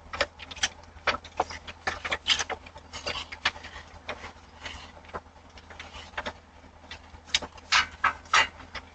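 A string of irregular sharp clicks and knocks, a few a second and louder near the end, over a faint steady low hum.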